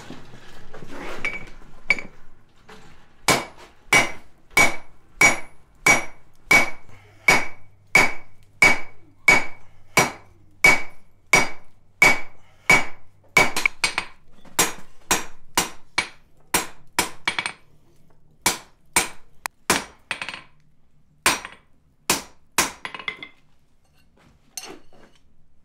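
Hand hammer striking hot steel bar stock on an anvil, drawing out a taper. Steady blows come about one and a half a second, each with a short metallic ring. About halfway through the blows turn lighter, quicker and less even, and they stop a couple of seconds before the end.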